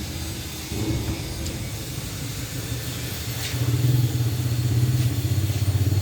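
A motorcycle engine running steadily, growing louder about three and a half seconds in.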